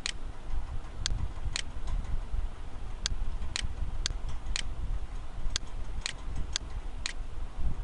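Computer mouse clicking: about ten short, sharp clicks at irregular intervals, as tabs in a settings dialog are selected one after another, over a steady low rumble of background noise.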